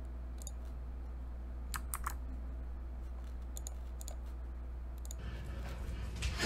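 About half a dozen scattered clicks from computer input at a desk, over a steady low hum.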